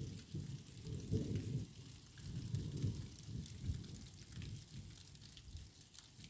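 Distant thunder rumbling in low, uneven swells, loudest about a second in, with a faint patter of rain.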